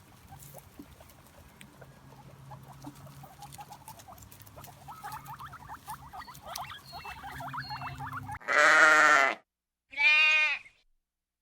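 Two loud bleats, each about a second long, near the end, after several seconds of a faint low hum and scattered faint high chirps.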